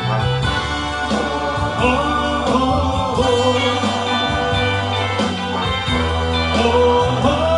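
Music with singing over it: a full band backing with sustained, choir-like vocal lines.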